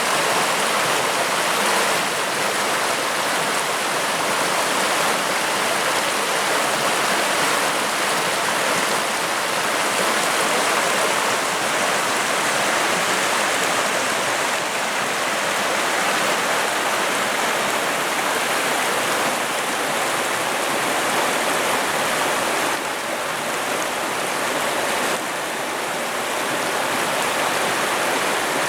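Swollen spring river rushing and bubbling in a steady, continuous flow of water noise.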